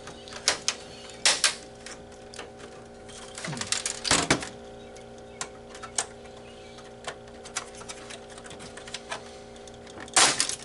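Irregular plastic clicks and snaps as the Xbox 360's plastic casing and front plate are pried off their clips, with a few louder snaps near the start, about four seconds in and near the end. A faint steady hum underneath.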